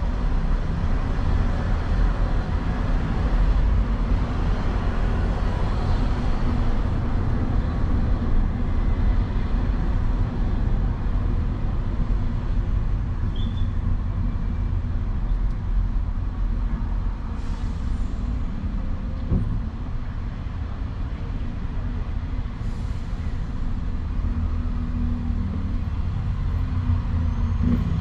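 Steady low rumble of a vehicle driving through city traffic, with two short hisses a little past the middle.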